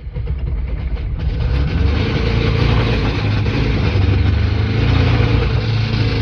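Lada 2112's 1.6-litre 16-valve VAZ-21124 engine starting up and building within a second or two to a steady run. It is the knocking engine that its owner had taken for dead.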